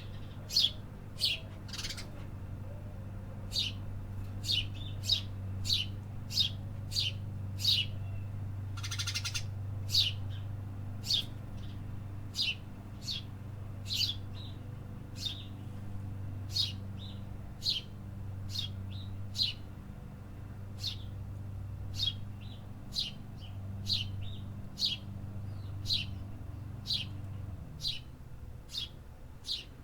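A small songbird chirping over and over, short sharp chirps dropping in pitch, about one or two a second, over a steady low hum that fades near the end. A brief hiss about a third of the way through.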